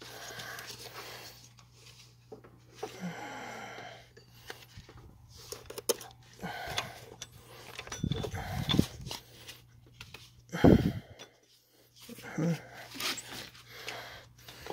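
Handling noise of hands working in an engine bay while a serpentine belt is routed over its pulleys: scattered rustles, scrapes and clicks, with heavy breathing close to the microphone and one loud low thump about eleven seconds in, over a faint steady hum.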